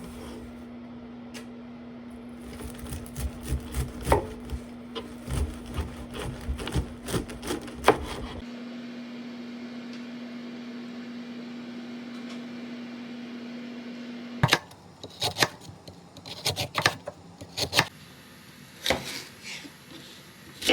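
Kitchen work: irregular knocks and clicks of utensils on a cutting board, over a steady hum that cuts off suddenly about two-thirds of the way through.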